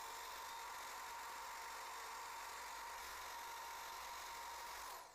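Electric drill running steadily with a wire wheel brush, a sewing-machine rod held against the spinning wire to scrub off rust and grime: a steady hiss with a whine, cutting off sharply near the end.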